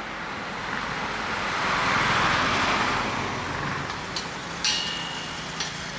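A motor vehicle passing by, its noise rising to a peak and fading away over a few seconds, followed by a few short sharp clicks near the end.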